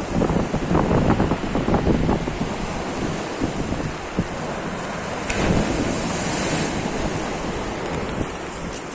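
Black Sea waves washing onto the shore, with wind buffeting the microphone. A wave surges in with a louder hiss about five seconds in.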